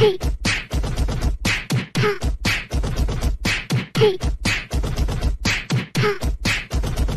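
A fast rhythmic beat of sharp percussive hits over deep bass, about five hits a second, with short pitched blips between them: a beatbox-style soundtrack.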